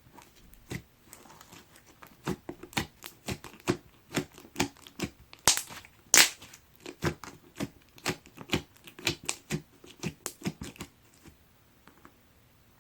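Clear slime being squished and poked, giving a run of sticky pops and clicks, two to three a second. The loudest pops come about halfway through, and they stop about eleven seconds in.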